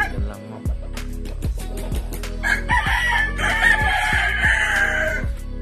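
A rooster crows once, a long held crow starting a little before halfway in and dropping away at the end. Background music with a steady thumping beat runs underneath.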